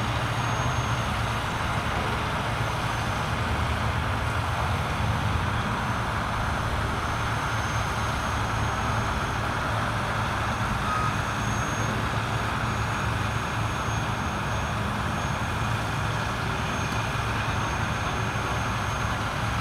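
Heavy wrecker tow truck's diesel engine running steadily while it winches a car up on its cable.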